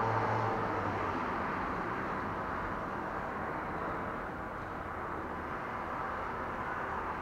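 Road traffic on a wide city road: a passing vehicle's low engine hum fades out within the first second, leaving a steady wash of traffic noise.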